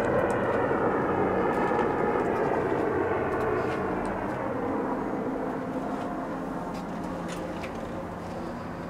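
Aircraft passing overhead: a steady drone with slowly sweeping tones that fades gradually, then cuts off abruptly near the end. A few faint clicks sound over it.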